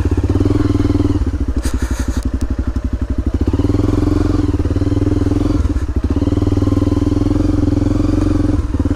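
Honda dirt bike engine running at low trail speed, with the throttle eased for a couple of seconds near the start and opened again. A short rattle comes about two seconds in.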